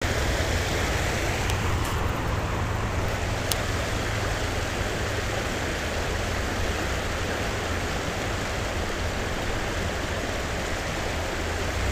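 Steady rushing of a shallow stream running over riffles, with a low rumble underneath. A few faint clicks come between about one and a half and three and a half seconds in.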